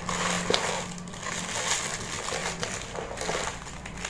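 Paper stuffing crinkling and rustling as a hand rummages through it inside a fabric handbag, with a few sharp crackles.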